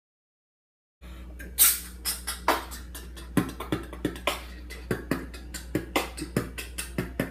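A percussive beat of sharp, irregular clicks and hits over a steady low hum, starting suddenly about a second in after dead silence.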